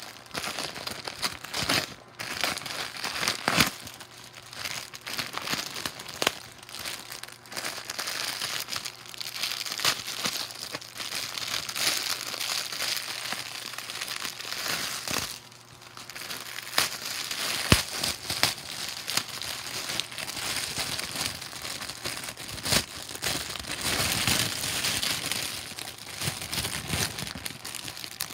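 Plastic bags crinkling and rustling as they are handled, with many sharp crackles throughout.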